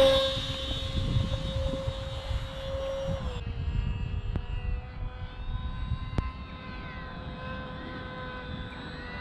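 Whine of a small RC airplane's 2205 brushless motor and propeller at full throttle, fading quickly as the plane leaves the hand on launch. The motor's thinner whine then comes from the plane flying at a distance, rising and falling in pitch as it manoeuvres, over a low rumble of wind on the microphone.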